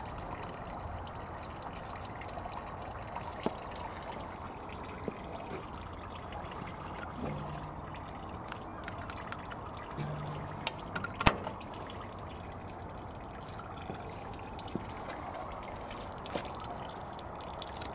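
Coolant trickling steadily out of a Kubota Bulltra B1-14 garden tractor's cooling system as it is drained, with its radiator filler cap off. A few light knocks come about eleven seconds in.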